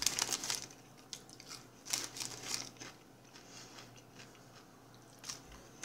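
Paper fast-food bag or wrapper rustling and crinkling in short bursts as fried food is pulled out of it, loudest near the start and again about two seconds in.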